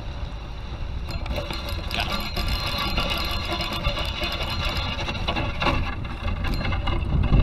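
Spinning reel cranked steadily, a whirring buzz with fast fine ticking that starts about a second in, while a small rainbow trout is reeled to the bank. Wind rumbles on the microphone underneath.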